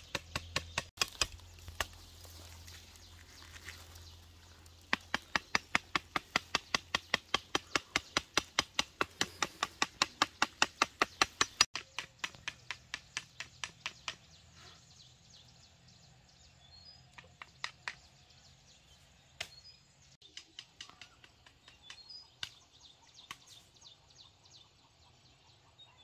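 Rhythmic chopping strikes, about four a second, strongest through the middle, then slower, fainter strikes in the second half.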